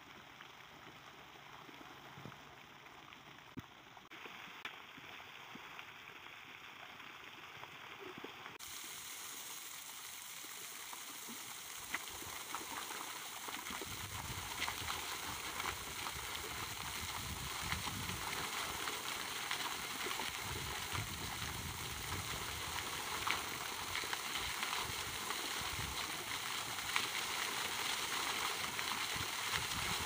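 Pond fountain jets spraying and splashing back into the water: a steady rushing hiss of falling spray that grows gradually louder, with a patchy low rumble joining about halfway through.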